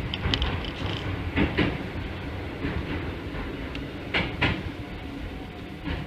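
Keikyu 1500-series electric train running, heard from the driver's cab: a steady low rumble with the wheels clicking over rail joints, in quick pairs about a second and a half in and again about four seconds in.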